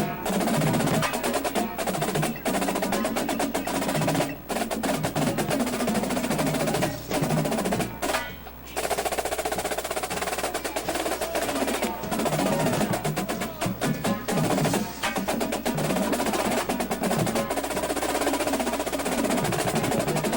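Indoor percussion ensemble playing: rapid drum strokes and rolls over pitched mallet notes, with a short break about eight seconds in.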